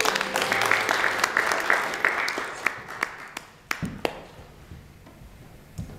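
Audience applauding. The dense clapping dies away over about three seconds to a few scattered last claps, then stops.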